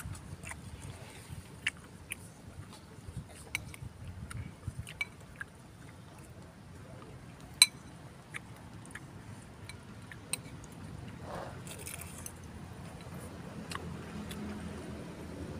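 Spoon clinking and scraping against a bowl of bakso while eating, with quiet chewing: a scatter of small clicks, one sharper clink about halfway through.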